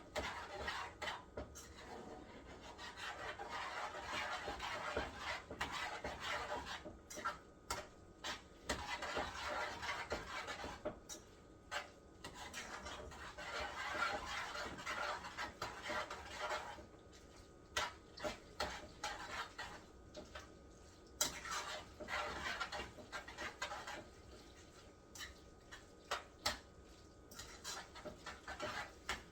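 A utensil stirring macaroni and cheese in a pot, in stretches of scraping against the pot with frequent clinks and clicks.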